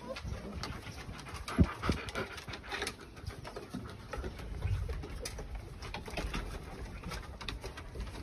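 Five-week-old German shepherd–husky mix puppies playing on a wooden deck: claws clicking and scrabbling on the boards, with soft puppy grunts and whines. One louder thump comes about a second and a half in.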